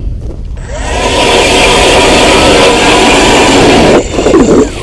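Cordless electric ice auger drilling through ice: a steady loud grinding with a faint motor whine, starting about half a second in and cutting off sharply about four seconds in, followed by a brief sound falling in pitch.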